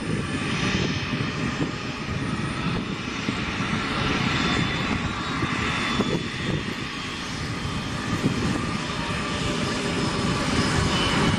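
Embraer KC-390's two IAE V2500 turbofan engines running at taxi power: a steady jet rumble with a faint high whine on top.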